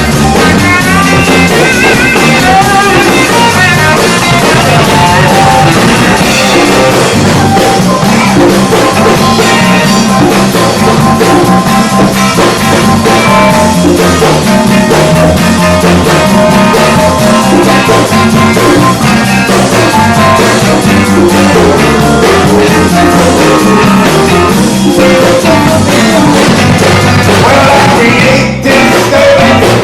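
Rock band playing loud without vocals: drum kit, guitar and bass, with a brief break near the end.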